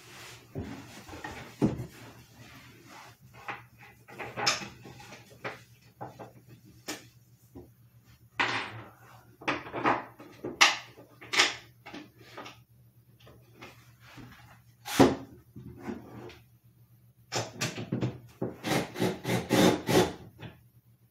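Wooden bed-frame parts knocking, clunking and scraping as they are handled and fitted together during assembly, in irregular strikes with pauses between, then a quick run of knocks near the end.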